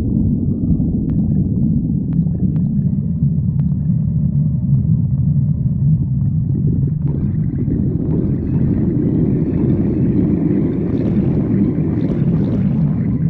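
A hungry person's stomach growling loudly: a continuous low rumble with gurgling that grows busier and higher-pitched from about seven seconds in.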